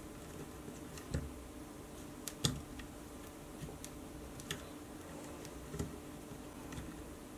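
Faint, scattered clicks and rustles of hands working paracord strands on a plastic weaving jig, over a faint steady hum; the sharpest click comes about two and a half seconds in.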